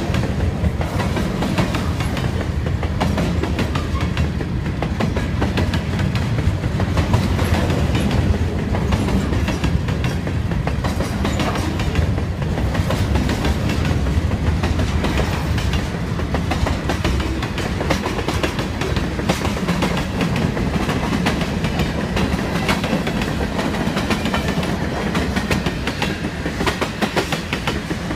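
Freight train cars, open gondolas and then tank cars, rolling steadily past: a steady low rumble of steel wheels on rail with many sharp wheel clicks.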